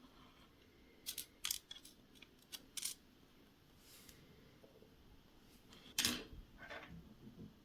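A series of light, sharp clicks and taps of small hard objects being handled: several quick ones in the first three seconds, then a louder click about six seconds in followed by softer ones.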